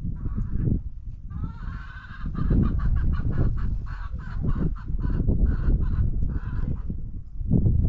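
Domestic fowl calling in a rapid run of short, repeated calls, about three a second. The calls begin about a second in with a rising first call and stop near the end, over a steady low rumble.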